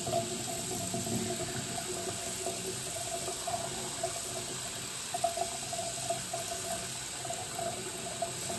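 Tap water pouring steadily from a faucet into a sink, splashing over a kitten being washed under the stream.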